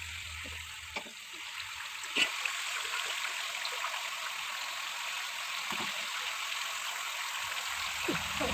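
Masala-coated fish steaks shallow-frying in hot oil in an aluminium pan: a steady sizzle with a few sharp pops.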